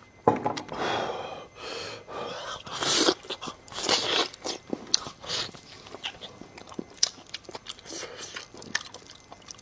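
Close-miked biting and chewing of meat: wet mouth sounds with crunching bites, louder in the first half and then settling into quieter chewing clicks.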